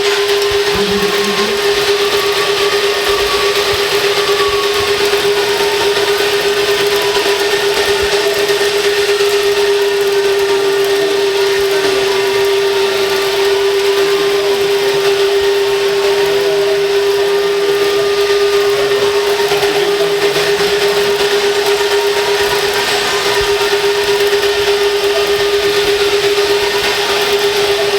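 Radio-controlled construction models running: a steady electric whine held at one pitch, with a higher whine that rises and falls and a hiss over it.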